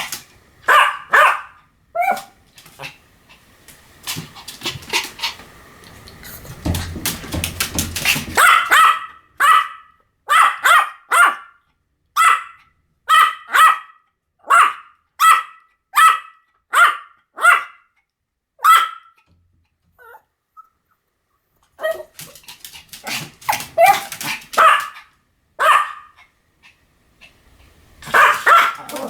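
A Pomeranian barking over and over in short, sharp, high barks, often in quick pairs. A low rumbling noise rises under the barks in the first quarter, and the barking stops for about three seconds about two-thirds of the way in before it starts again.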